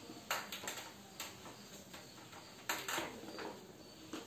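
Whiteboard duster wiping a whiteboard clean in several short, irregular rubbing strokes.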